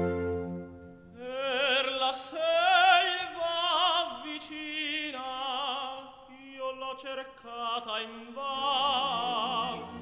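Background classical music: a high operatic voice sings with wide vibrato over sustained orchestral strings. The voice enters about a second in.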